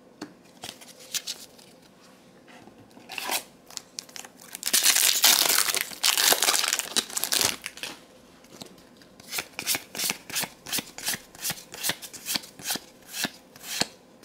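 A Magic: The Gathering booster pack's foil wrapper being torn open and crinkled, then the cards flicked through one by one with a sharp snap about twice a second.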